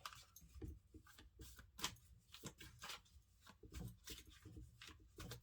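Faint, irregular clicks and rustles of tarot cards being handled, slid and laid down on a table.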